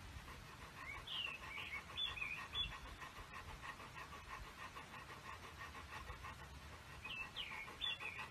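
Golden retriever panting in a quick, even rhythm. Two brief spells of high chirping glides come over it, about a second in and again near the end.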